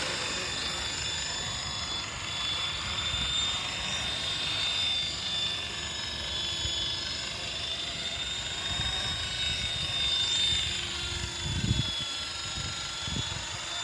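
WLtoys V913 RC helicopter flying: a steady high electric-motor and rotor whine that wavers slightly in pitch, over wind rumbling on the microphone, with a few stronger gusts near the end.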